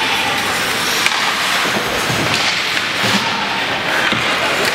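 Ice hockey play: skates scraping across the ice, with scattered sharp clacks of sticks and puck.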